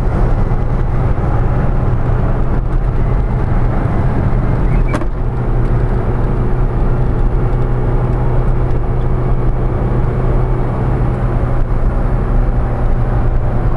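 In-cabin noise of a 1991 Subaru Sambar Dias II kei van cruising at about 50 mph: a steady drone from the rear-mounted supercharged engine, mixed with road and tyre noise. A single sharp click sounds about five seconds in.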